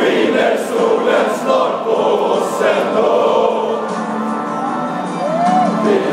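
Large crowd of football supporters singing a chant together in the stands, many voices close to the microphone.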